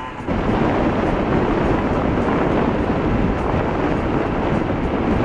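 Heavy wind buffeting a phone microphone on a moving motor scooter, a loud steady rush that sets in a fraction of a second in and drowns out the engine.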